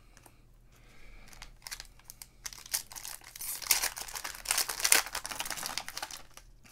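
Foil wrapper of a Panini Contenders football card pack being torn open and crinkled by hand, a crackling that starts about a second in and is loudest in the middle as the wrapper is pulled apart.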